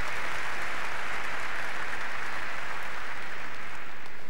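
Tennis crowd applauding: a steady spread of clapping between points.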